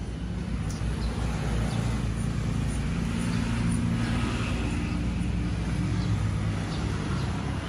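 A motor vehicle's engine passing on the road: a low hum that swells after about a second and eases off near the end. Faint bird chirps come through now and then.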